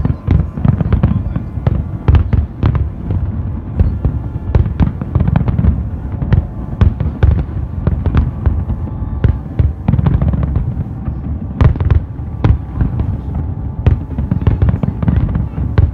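Fireworks display: a dense barrage of aerial shell bursts, many sharp bangs a second over a continuous low rumble.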